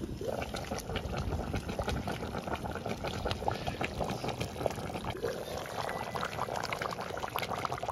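Spicy pork stew bubbling at the boil in a black clay pot: a dense, steady run of small pops and crackles from the simmering broth.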